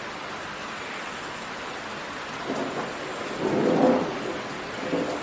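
Heavy rain pouring steadily in a downpour, with thunder rumbling in about halfway through, swelling loudest shortly before the end and rolling on.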